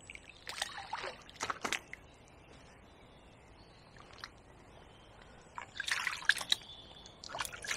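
Water splashing and trickling in two short spells of quick drips and splashes, the second busier, with a quiet stretch between.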